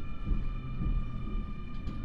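Keio 9000 series electric train standing still, its onboard electrical equipment giving a steady high hum made of several even tones over a low, uneven rumble.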